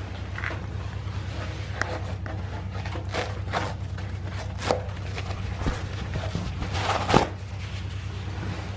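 A steady low hum with a series of sharp clicks and knocks from handling in a small toilet room. The loudest knock comes about seven seconds in.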